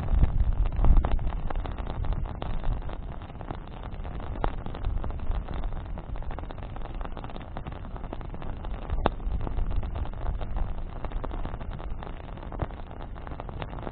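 Wood bonfire burning, with frequent small crackles and pops and one sharper pop about nine seconds in, over a steady low rumble.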